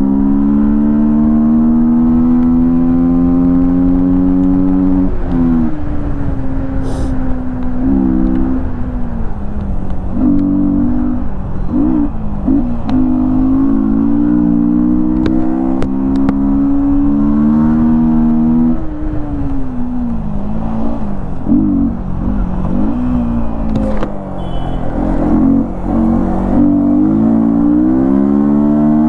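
Yamaha MT-15's single-cylinder engine with an open air filter, loud under riding. It revs up in long rising sweeps, falls back in pitch at each gear change or easing of the throttle, and gives several quick throttle blips in the second half.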